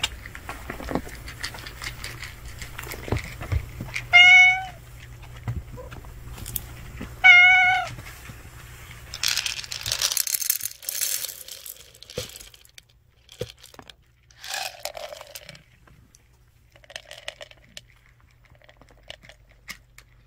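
A tortoiseshell cat meowing twice, two loud wavering calls about three seconds apart. Around ten seconds in, dry cat food rattles as it is poured from a plastic container, followed by a few fainter scattered noises.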